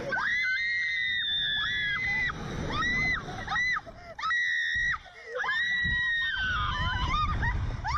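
Two women screaming on a slingshot reverse-bungee ride: a string of long, high-pitched screams one after another, some held for over a second.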